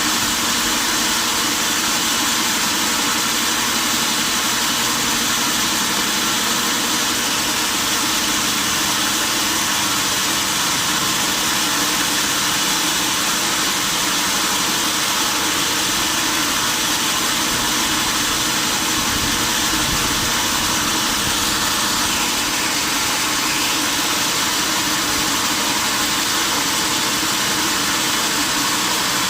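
Sawmill saw machinery running steadily, a loud, constant noise that does not change.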